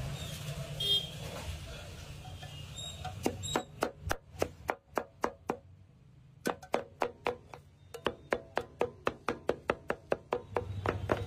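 Two flat metal spatula-blades chopping chilies and ginger against a large metal griddle: rapid, rhythmic metal clacking at about four strikes a second. It starts about three seconds in, pauses briefly near the middle, then picks up again faster.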